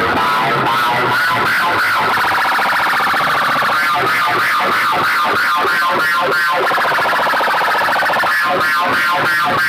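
Loud music blaring from a large array of horn loudspeakers, a warbling tone wavering up and down over a beat that pulses about three times a second in the second half.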